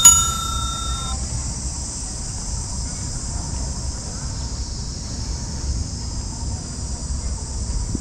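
A single bright bell ding right at the start, ringing out for about a second: the notification-bell sound effect of a subscribe-button animation. After it comes a steady high insect buzz over a low rumble of riding along a paved path.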